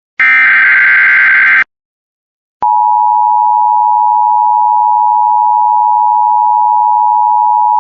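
Emergency Alert System SAME header: a burst of digital data tones that cuts off about 1.6 s in. About a second of silence follows, then the steady EAS attention signal, the 853 and 960 Hz two-tone alarm, starts and holds.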